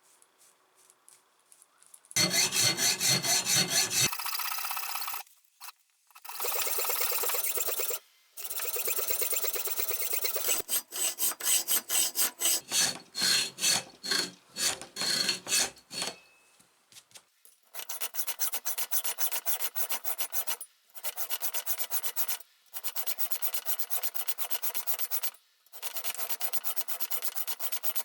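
A hand tool scraping rapidly back and forth across a steel bench-vise jaw, in runs of a few seconds with short pauses. It is recutting the worn gripping grooves so the jaw holds without slipping.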